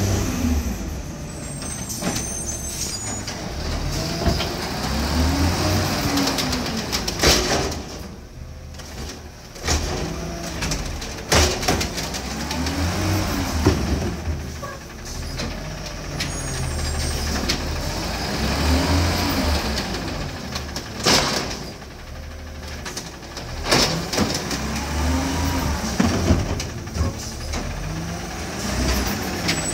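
Autocar garbage truck with an Amrep automated side-loader arm picking up carts. The diesel revs up and back down about every six seconds to power the hydraulic arm for each lift and dump, with sharp knocks and bangs from the arm and carts in between.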